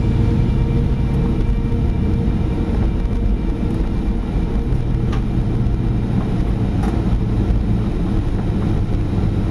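Steady low rumble of a jet airliner heard from inside the passenger cabin just after landing, as the plane slows and taxis.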